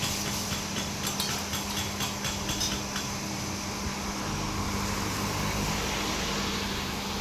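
Steady street-side ambience with an electric fan's hum under it, and faint clicks and clatter in the first few seconds. A low rumble of traffic or wind swells from about halfway through.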